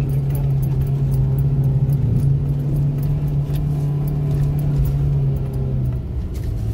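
Car engine droning steadily in a low gear, heard from inside the cabin, with light clicking rattles throughout; the engine note drops lower about six seconds in.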